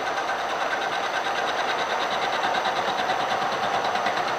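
Milling machine running steadily, its end mill lightly skimming the metal bracket in a trial arc cut on a rotary table; an even, rapid whir with a steady tone.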